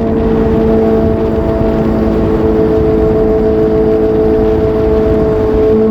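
Suzuki GSR750's inline-four engine running at steady revs under way, its pitch holding nearly constant and dipping slightly near the end, with wind rush underneath.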